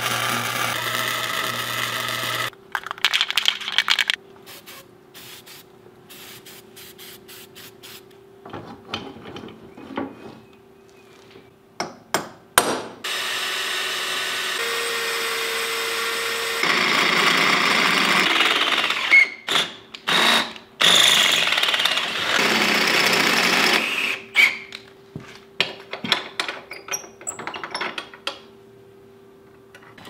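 Metalworking on a steel winch mount: welding for the first couple of seconds, then scattered clicks and knocks of hand work, and a power tool, typed by the tagger as a drill, running in two long stretches in the middle, with a faint steady hum underneath.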